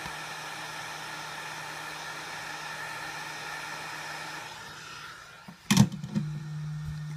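Heat gun blowing steadily with a fan whine, shutting off about five seconds in. A sharp knock follows, and then a steady low hum.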